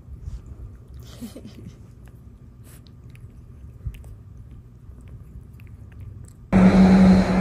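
A cat chewing a treat close to the microphone: quiet, wet chewing with a few small crunches and clicks. About a second before the end it cuts abruptly to loud wind noise on the microphone with a steady low hum.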